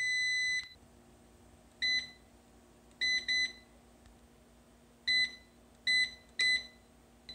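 Kitchen Academy air fryer's touch control panel beeping. There is one long beep at the start, then six short key beeps spread over the next several seconds, two of them in quick succession, as the buttons are pressed to set the temperature and cooking time.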